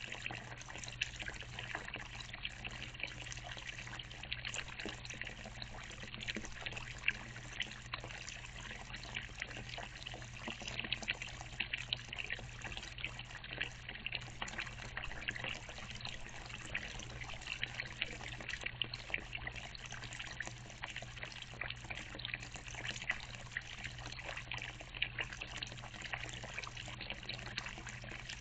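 Water trickling steadily at a small watering hole, a fine continuous splashing, over a steady low hum.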